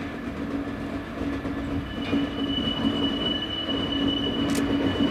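Class 66 diesel freight locomotive's two-stroke V12 engine running with a steady drone as it hauls ballast wagons. From about two seconds in, a thin, steady, high-pitched wheel squeal sounds, typical of flanges grinding on curved track, with a couple of clicks near the end.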